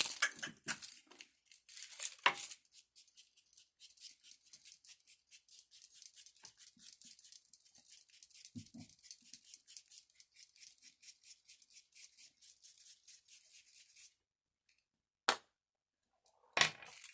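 Quick, rasping scraping strokes by hand, several a second, that stop abruptly about fourteen seconds in. A few sharp knocks follow near the end.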